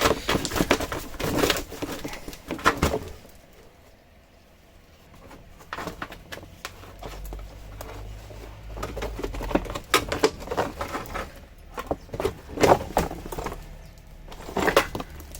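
Irregular clicks, taps and knocks of a screwdriver prying plastic clips and trim from a car's inner wheel arch, in scattered clusters with a short lull about four seconds in.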